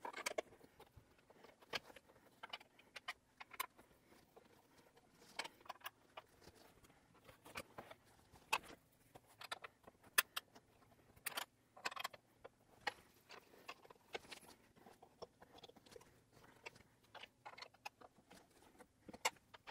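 Faint, irregular metallic clicks and clinks of a hex key turning the armrest bolts of an office chair, a couple of turns at a time.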